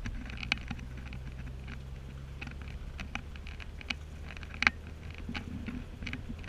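Low, steady engine and road drone heard inside a Mercedes-Benz car's cabin, with scattered irregular light ticks and taps over it; the sharpest tap comes about two-thirds of the way through.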